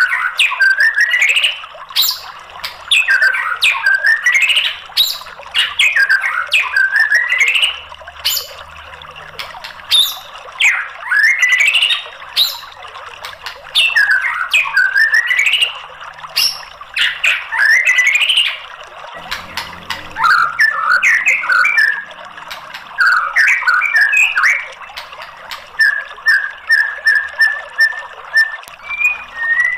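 White-rumped shama singing: loud, repeated whistled phrases that sweep upward and carry sharp clicking notes, about one every one and a half to two seconds. About two-thirds of the way in, the song turns to fast chattering trills, then a run of short, evenly spaced notes.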